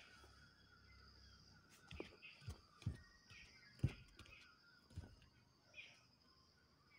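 Faint outdoor ambience: birds giving short calls again and again, with a few soft thumps of footsteps on concrete steps between about two and five seconds in.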